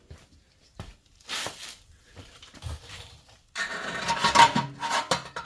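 Metal scraping and clinking as pliers grip the loose, broken baffle inside a Yamaha Grizzly YFM660 exhaust and drag it against the pipe. Light scrapes at first, turning into loud, continuous scraping with a metallic ring about three and a half seconds in.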